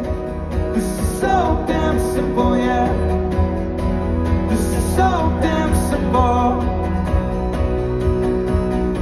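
Acoustic guitar strummed steadily, with a man singing over it until about six seconds in.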